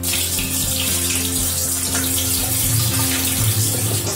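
Water gushing steadily from the reopened supply into an empty concealed toilet cistern, its fill valve removed, starting suddenly. The full flow shows that the supply itself is clear and the fill valve is what is clogged, which the owner suspects is from limescale.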